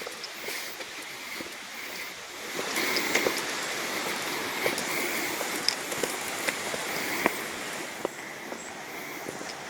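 Creek water running steadily, growing louder about two and a half seconds in, with scattered ticks of footsteps on the railway grade at a walking pace.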